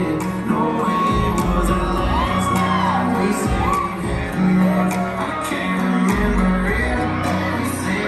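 A song with a singer and a steady bass line plays loudly over a dance hall's sound system. Whoops and shouts from the crowd rise over it now and then.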